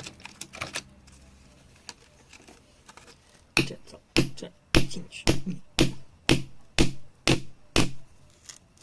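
A hand tool striking rock in a steady run of about nine sharp blows, roughly two a second, starting about three and a half seconds in, after a few light clicks.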